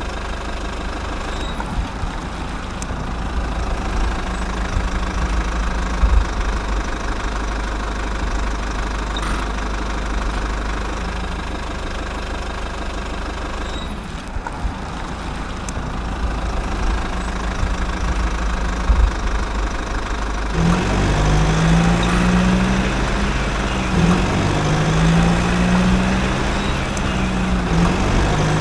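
Truck engine idling sound, steady with a low rumble. About twenty seconds in, a repeating low pattern of two alternating tones starts over it.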